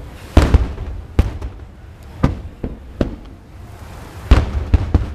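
Aerial firework shells bursting: a run of about ten sharp bangs at uneven spacing. The loudest come about half a second in and again just after four seconds, each with a low rumbling tail.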